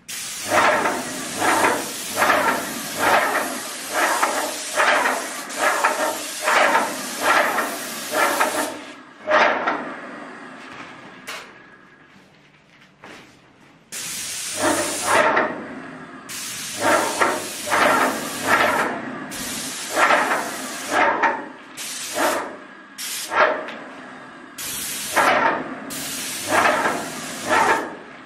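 Airless paint spray gun hissing as paint is sprayed onto woodwork, the hiss pulsing about every two-thirds of a second. The spray stops for several seconds around the middle, then resumes in short passes as the trigger is pulled and released.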